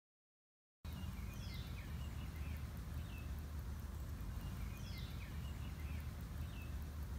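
A bird calling twice, each call a quick downward-sweeping high note followed by a short chirp, over a faint, steady low hum; the sound starts about a second in.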